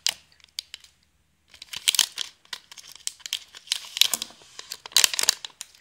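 Foil booster pack crinkling and tearing as it is handled and opened, in several bursts of crackling with short pauses between them.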